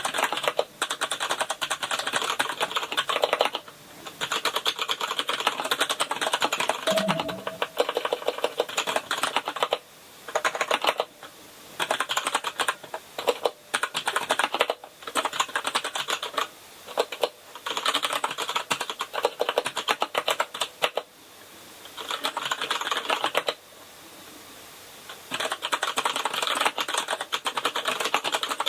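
Typing on a Kinesis Advantage contoured keyboard with Cherry MX Brown tactile switches: rapid runs of key clicks and keystrokes, each run lasting several seconds, broken by short pauses.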